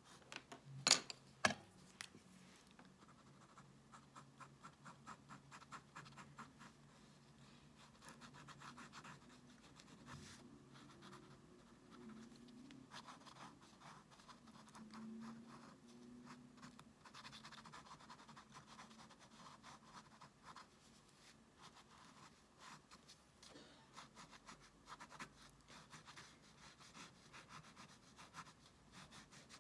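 Faint scratching of short, quick drawing strokes on sketchbook paper, with two sharp clicks about a second in.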